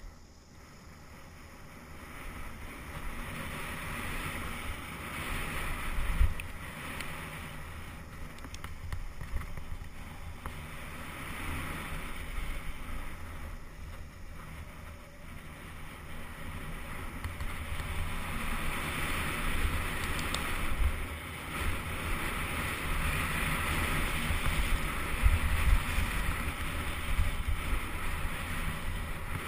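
Wind rushing over the camera's microphone as a mountain bike descends a dirt trail at speed, with the rumble of the tyres and sharp knocks from bumps and jump landings, one about six seconds in and several near the end. The rushing grows louder as speed builds in the second half.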